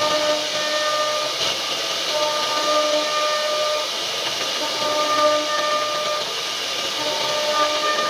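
CNC router spindle running and cutting wood: a loud, steady hiss with a high whine whose tones drop out and come back every second or so.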